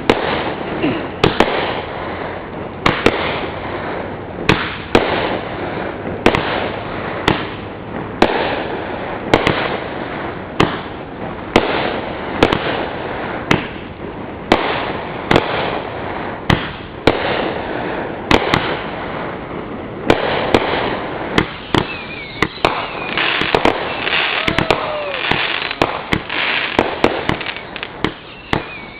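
Aerial consumer fireworks going off: sharp shell bursts about once a second with crackling between them. The crackling grows denser, with a few faint whistles, in the last third.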